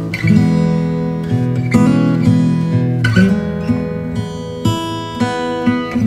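Background music of a strummed acoustic guitar, with the chords changing every second or so.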